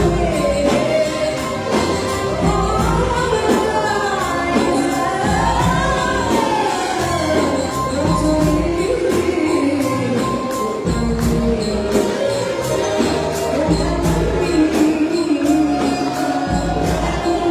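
Arabic song: a woman singing a winding, gliding melody over a steady tambourine beat.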